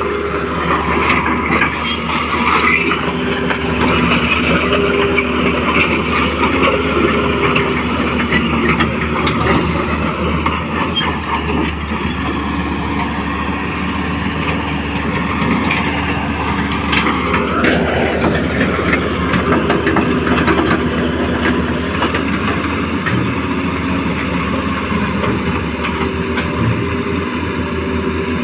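Radio-controlled model excavator and dump truck working: a steady whir of small electric motors and hydraulic pump, with a few held whining tones. A whine rises sharply in pitch about seventeen seconds in.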